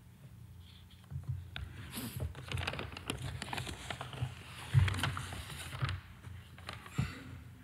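Scattered light clicks and rustling over a steady low hum, busiest in the middle, with a sharper knock about five seconds in.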